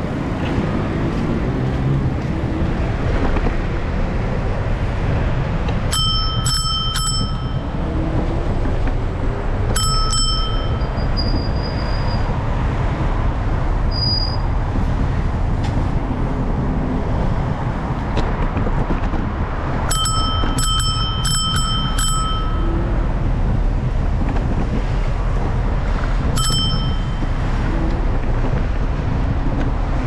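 Bicycle bell rung in short groups of dings: three quick ones, a single one, then a fast run of about six, and a last single ding near the end. Steady traffic and wind noise runs underneath.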